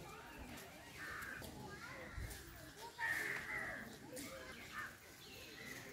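Crows cawing a few times, loudest about a second in and again about three seconds in, over faint background chatter.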